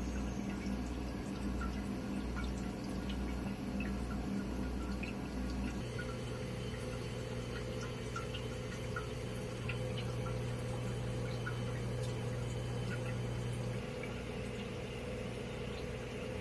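Ultrasonic mist-maker humidifier units floating in a water bucket, running with their small fan: a steady electrical hum with faint water dripping and trickling. The hum changes pitch about six seconds in and again near the end.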